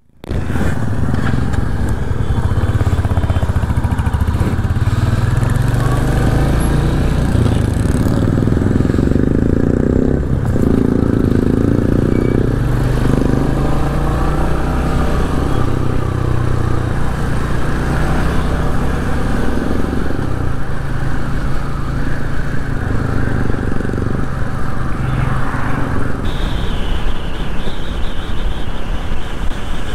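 Royal Enfield Hunter 350's single-cylinder engine running as the motorcycle pulls away and rides on, rising and falling in pitch with the throttle and gear changes, over steady wind noise.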